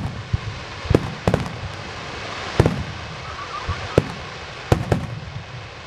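Aerial firework shells bursting: about half a dozen sharp bangs at uneven intervals, each trailing off in a short low rumble.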